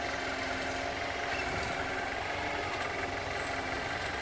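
Clark forklift's engine running steadily at low speed as the truck creeps forward.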